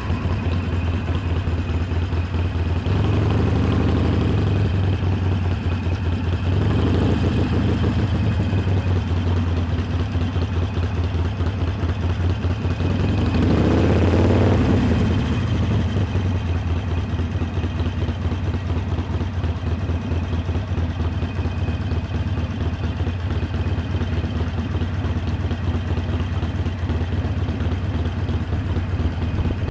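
Harley-Davidson Iron 883's air-cooled V-twin engine running steadily on the move, with a pulsing low note that swells three times as the throttle is opened.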